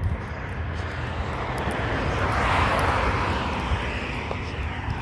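An engine-driven vehicle passing by: a rushing engine noise that swells to a peak about halfway through and then fades away.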